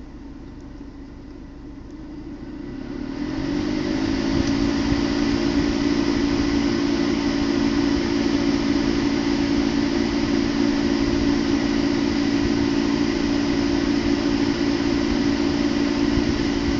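2012 BMW 328i's air conditioning running with a loud, steady hum and rushing noise that swells up about three seconds in and then holds. The owner likens it to a motorcycle at full speed, an abnormal noise for a month-old car.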